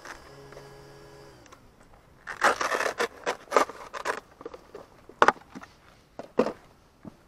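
Hands unclipping and lifting the plastic body shell off an HPI Vorza Flux RC buggy: a burst of plastic scraping and rattling, then a few sharp clicks. A faint steady hum stops about a second and a half in.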